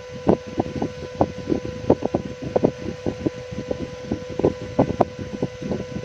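A steady hum under rapid, irregular light clicks and taps, several a second.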